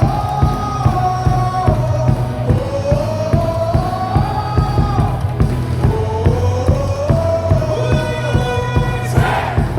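Baseball cheer song playing over stadium loudspeakers with a steady drumbeat, the crowd singing along. The crowd shouts together near the end.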